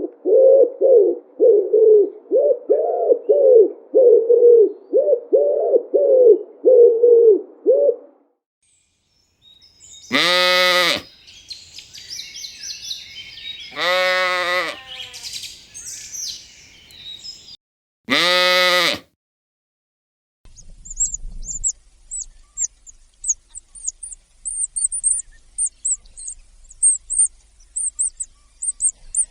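A run of about a dozen short, low animal calls, one every half second or so. Then come three drawn-out bleats about four seconds apart, with chirping between them. After that, quick high-pitched bird chirping runs on.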